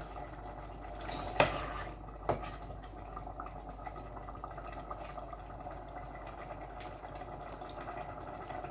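Pot of cassava leaf stew simmering on an electric hob, a steady bubbling, with two sharp knocks about one and a half and two and a half seconds in.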